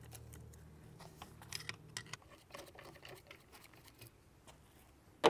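Faint scattered clicks and light metal clinks of a wrench and loose steel bolts being handled while the motor-to-seal-plate bolts come out, ending with one sharper knock.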